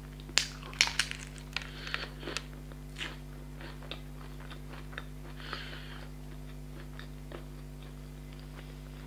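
Close-miked biting and chewing of a crisp fried vegetable samosa: a run of sharp crunchy crackles in the first couple of seconds, then softer, sparser chewing clicks that die away about three quarters of the way through.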